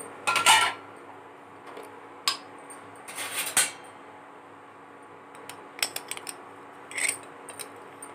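Stainless steel plates and bowls clinking and scraping: a loud ringing clink about half a second in, a knock, a scrape around three and a half seconds, then a few lighter ticks and a clink. Under it runs a steady low hum from the induction cooktop.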